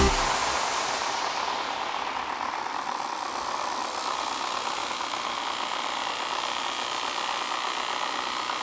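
Small electric desk fans running: a steady whir of motor and blade air noise, its upper hiss thinning over the first couple of seconds.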